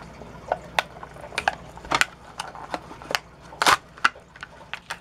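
Plastic blister pack on a cardboard toy card being pulled open by hand: irregular crackles and snaps, the loudest a little past the middle.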